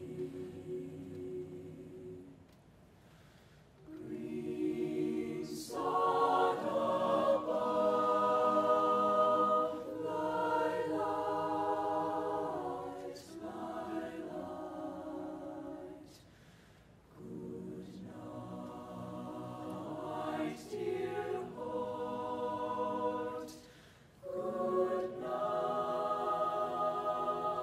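Teenage mixed-voice choir singing slow, sustained chords. The phrases break off briefly about three seconds in, around sixteen seconds and near twenty-four seconds.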